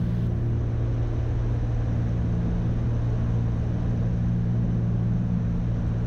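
Cessna 310's twin piston engines and propellers droning steadily inside the cockpit at approach power on short final, with flaps down and the aircraft crabbing into a crosswind.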